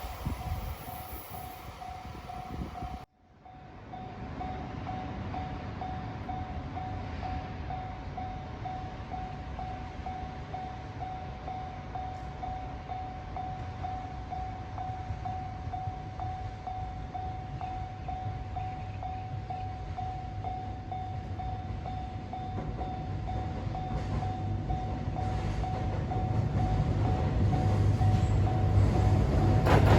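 Japanese level crossing warning bell ringing in a steady, even pulse, with the low rumble of a freight train hauled by a DD200 diesel locomotive growing louder as it approaches over the last several seconds. The first three seconds hold the tail of another train's passing noise before a cut.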